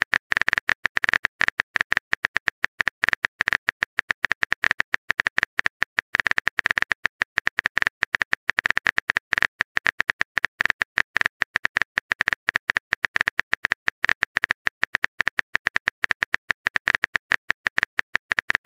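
A rapid, unbroken run of keyboard typing clicks, many a second: a texting app's key-tap sound as a message is typed out letter by letter.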